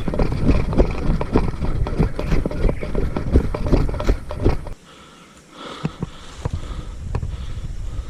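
Footsteps of a person running, about two to three steps a second, with the jolt of each stride on the microphone. They stop abruptly about five seconds in, leaving quieter sound with a faint voice.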